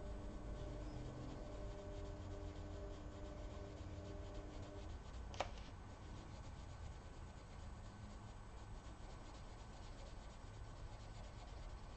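Faint scratching of a Prismacolor coloured pencil shading on paper in repeated strokes, with one sharp click about five seconds in.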